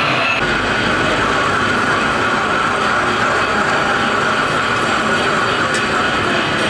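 Metal lathe turning a crankpin on a steel crankshaft held in offset chucks, the cutting tool shaving metal from the spinning workpiece: a loud, steady machining noise that shifts slightly about half a second in.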